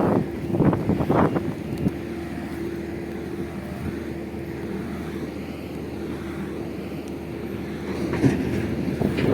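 Caterpillar 140 GC motor grader's diesel engine running steadily with a held hum, with louder irregular bursts of rumble near the start and again near the end.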